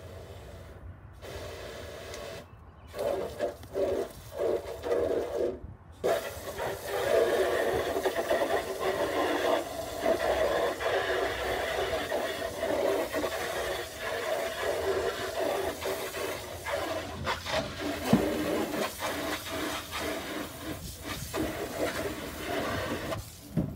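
Water spraying onto a dirty chicken-coop tray as it is rinsed: a few short spurts at first, then a steady rushing splash for most of the time, stopping just before the end.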